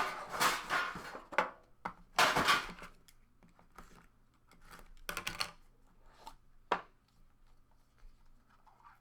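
A sealed trading card box being opened by hand: bursts of crinkling and tearing, likely the shrink wrap coming off, in the first few seconds and again about five seconds in, then scattered light clicks and knocks of cardboard and card handling.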